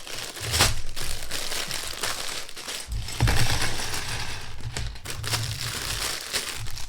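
Plastic Lego parts bag crinkling as it is handled and opened, with small plastic bricks rattling inside.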